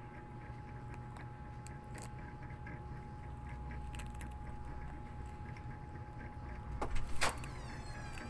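Cat eating, with small irregular clicks and crunches of chewing over a steady low hum. A few louder sharp knocks come near the end.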